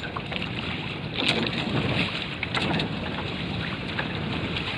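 Water rushing along the hull of a Prindle 16 catamaran under sail, with wind buffeting the microphone mounted close to the water; a few sharper splashes of water slapping the hull.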